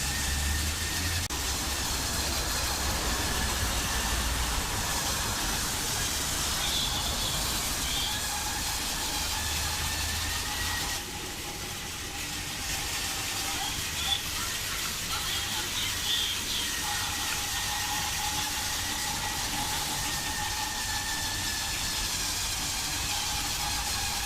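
TOMY Trackmaster 2 Talking Percy battery toy locomotive running along plastic track: a steady electric motor whine, with the chuffing sound effect from its built-in speaker. A single sharp click about 14 seconds in.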